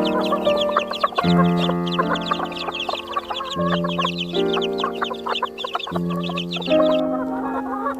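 Hens clucking and chattering over background music of slow, held chords that change every second or two. The chatter stops about a second before the end, while the music carries on.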